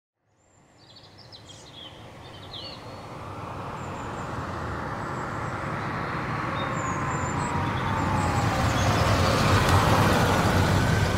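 A jeep sound effect: the vehicle drives up and grows steadily louder as it approaches. Birds chirp in the first few seconds.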